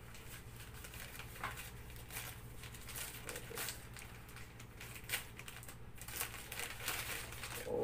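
Paper wrapping crinkling and rustling as it is unwrapped by hand, in faint, irregular crackles.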